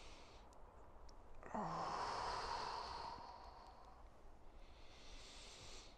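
A man's slow, deep breathing: a long, sighing exhale out through the mouth that starts about one and a half seconds in with a brief voiced sound dropping in pitch and fades over about two seconds, followed near the end by a quieter inhale through the nose.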